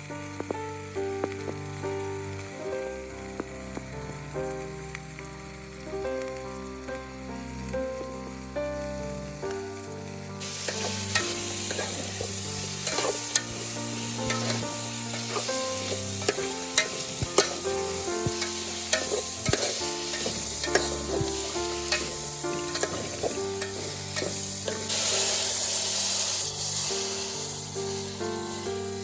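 Vegetables sizzling as they fry in a pan, with stirring clicks and scrapes; the sizzle gets much louder about ten seconds in. Background music plays throughout.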